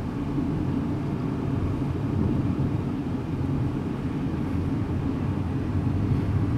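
Steady low road and engine rumble of a car driving at speed, heard inside its cabin.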